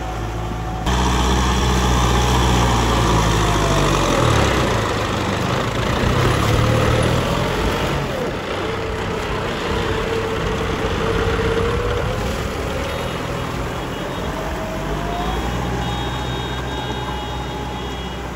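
Tractor diesel engine running under load while pulling a rotary tiller through wet soil. Its note dips and rises through the middle as the load changes, and the sound jumps louder about a second in.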